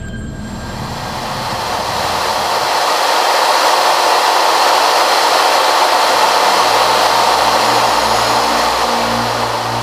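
F4U-4 Corsair in flight, heard from inside the cockpit: a loud, steady rush of air over the engine drone of its Pratt & Whitney R-2800 Double Wasp radial. The noise swells over the first few seconds and then holds steady.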